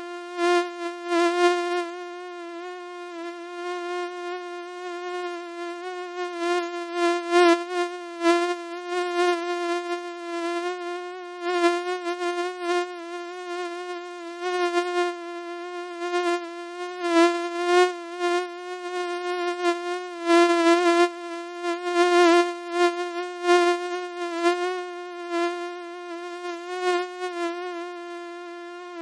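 Mosquito in flight: a steady, high buzzing whine that keeps swelling louder and fading back at irregular intervals.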